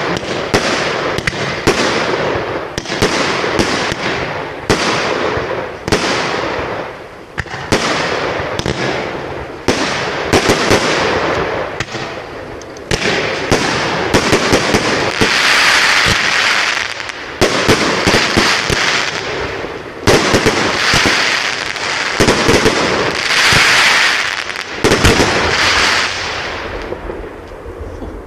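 Aerial fireworks going off in quick succession: a near-continuous run of sharp bangs from launches and bursting shells, with two louder stretches of crackling hiss in the second half.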